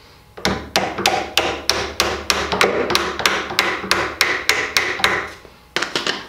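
Rapid, even mallet blows, about three a second, knocking a half-inch wooden dowel through a trestle table's upper support; after a short pause near the end, two or three more blows.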